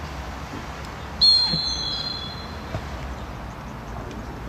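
A referee's whistle blown once in a shrill blast of about a second, starting about a second in, over faint open-air background noise.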